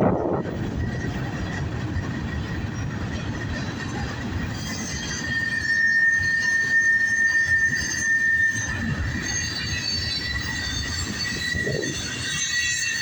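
Freight train cars rolling past with a steady high-pitched wheel squeal over the low rumble of the train. The squeal grows louder and gains higher tones about five seconds in.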